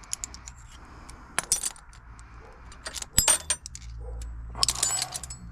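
Metal hand tools clinking and clattering as they are handled, in three short clusters of sharp, ringing clinks.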